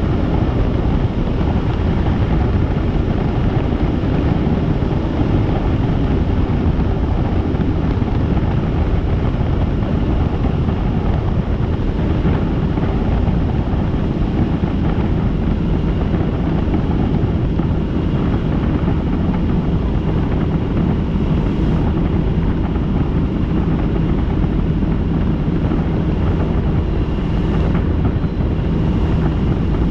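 Helicopter in flight: a loud, steady, low drone of rotor and engine that does not change.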